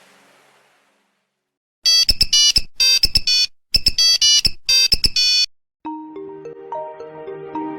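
Nokia mobile phone ringtones: a tune fades out, then after a brief silence come four short groups of rapid high-pitched electronic beeps about a second apart. Near the end a new, lower polyphonic melody starts.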